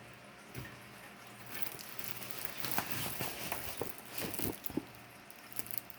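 Handling noise from the diamond-painting kit: soft rustling with a scatter of light clicks and taps, starting about a second and a half in.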